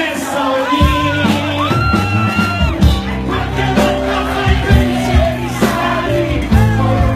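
Live band music with a singer: a sung line gliding over held bass notes, with regular cymbal-like hits on top.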